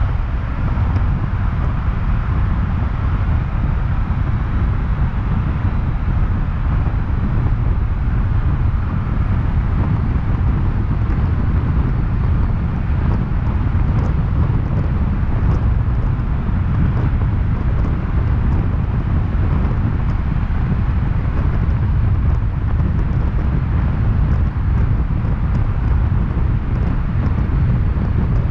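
Steady low rumble of a car driving at speed through a road tunnel: tyre and road noise mixed with wind buffeting the outside microphone.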